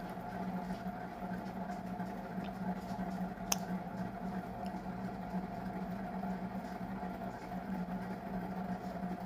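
A steady low mechanical hum with a constant pitch, and a single sharp click about three and a half seconds in.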